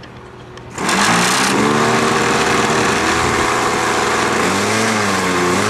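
A model airplane's glow-fuel engine starts up about a second in and keeps running at idle, a loud steady buzz whose pitch wavers slightly.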